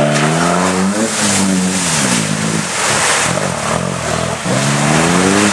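Off-road 4x4 engine revving hard as the vehicle drives through mud and water: the engine note climbs and falls back several times and climbs again near the end. A loud rushing noise of the wheels churning muddy water runs over it in the middle.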